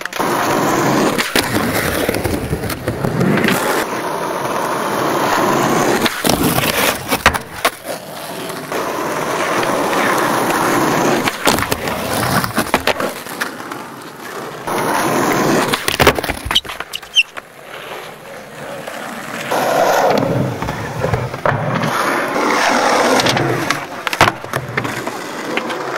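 Skateboard wheels rolling over rough asphalt, broken again and again by sharp clacks of tails popping, trucks and boards hitting a concrete ledge, and landings.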